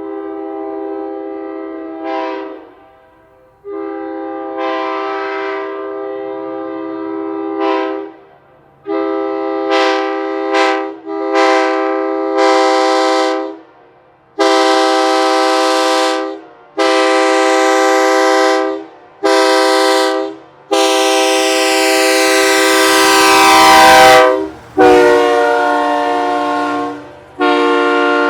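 Nathan Airchime K3HA three-chime train horn, mounted on a truck, sounded in about ten loud blasts of a steady chord. The blasts run from about one to four seconds each, with short gaps between them.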